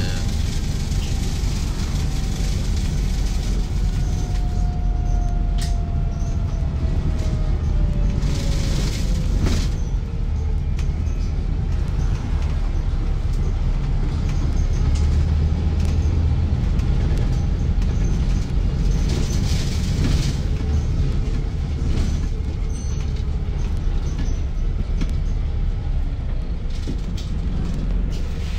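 Inside a Volvo B5TL / Wright Gemini 3 double-decker bus on the move: a steady low engine and road rumble with rattles and clicks from the bodywork. A whine falls slowly in pitch early on, and two short hissing bursts come about a third and two thirds of the way through.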